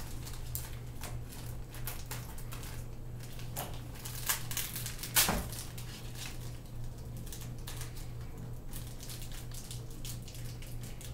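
Plastic packaging crinkling and small plastic Beyblade parts clicking as they are handled and unpacked, in a continuous run of irregular small clicks and rustles with a sharper click about five seconds in. A low steady hum runs underneath.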